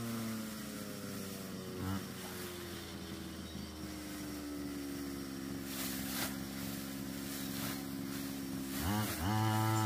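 Small engine of a mini rice thresher running steadily in the paddy, its pitch dipping and then rising sharply near the end as it is revved. Brief rustles of rice straw being gathered by hand come through a couple of times.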